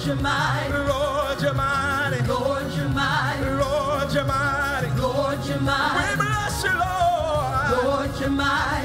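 Live gospel music: a lead singer and backing vocal group singing over instrumental accompaniment, the voices held and sliding with a wide vibrato.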